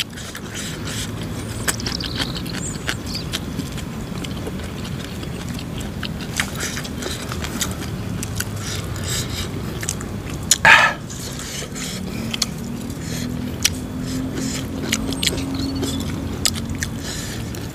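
Close-up chewing and crunching of food, a steady run of sharp crisp clicks from the mouth, over a steady low drone. A short louder sound breaks in about eleven seconds in.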